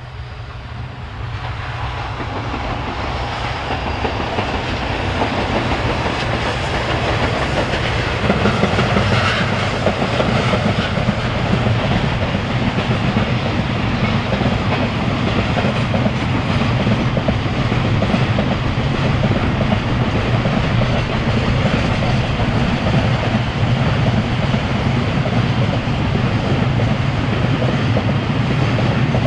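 Electric freight train of container wagons passing: the sound grows louder over the first eight seconds or so as it approaches, then holds steady as the long line of wagons rolls past on the rails.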